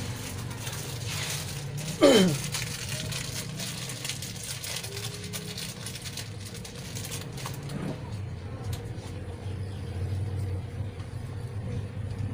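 Low, steady rumble of motor vehicles passing outside. About two seconds in, a sudden loud sound drops quickly in pitch.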